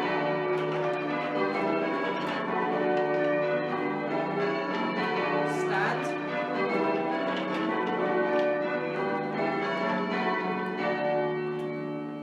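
A ring of eight church bells, a 24 cwt eight, rung in changes: strike follows strike in steady succession, each bell's hum overlapping the next. The sound dies away near the end.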